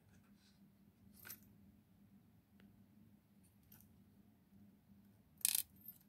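Small metal clicks as a brass Ruko 600 lock cylinder and its key are handled during disassembly. There are a few light ticks, a clearer click about a second in, and a sharp, louder double click near the end.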